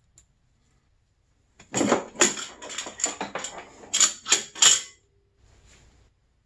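Metallic clinks and rattles, about eight in quick succession over three seconds, as a yellow trouble light is handled and hung in a snowmobile's engine bay.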